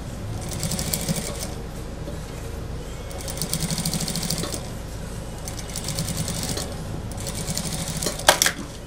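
Industrial single-needle sewing machine stitching a seam through a mink coat, run in four short bursts of rapid stitching with pauses between them as the curve is guided by hand. A sharp click comes near the end.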